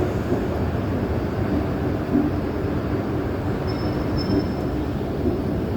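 A train running, a steady low rumble, with a faint high squeal a little past halfway.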